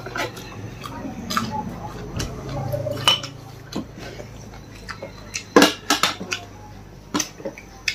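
Eating at close range: irregular clicks and taps of a utensil against a dish. A quick cluster of sharper clicks about five and a half seconds in is the loudest part.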